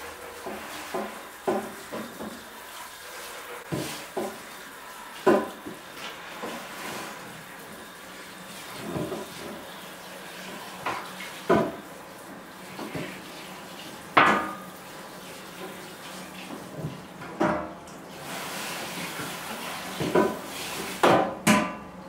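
Whole plucked chicken carcasses being handled at a stainless steel sink and table: scattered clunks and knocks against the metal, with water running briefly for a few seconds in the second half.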